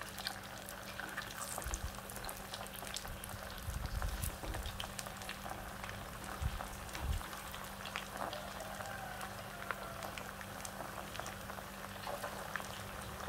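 Marinated taro root pieces deep-frying in groundnut oil in a steel pot: a steady bubbling sizzle with fine crackles.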